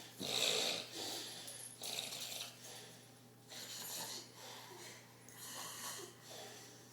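A man snoring in a heavy, passed-out sleep after a night of drinking, in a series of rasping breaths. The snores are strongest in the first two seconds and become fainter from about three seconds in.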